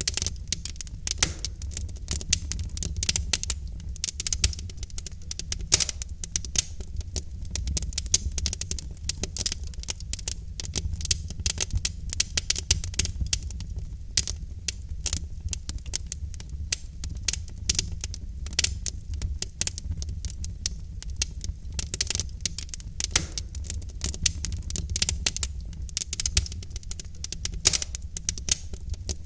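Wood logs burning in a fireplace, crackling with many small irregular pops and snaps over a steady low rumble.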